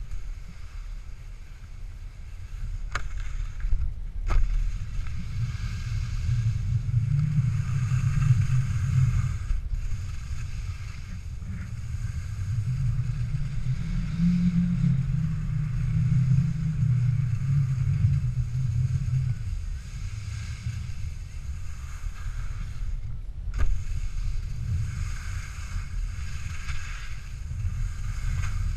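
Wind buffeting a GoPro's microphone while telemark skis hiss and scrape over packed snow, the scraping swelling and fading with each run of turns. A few sharp clicks stand out, one about three seconds in, one about four seconds in and one near the end.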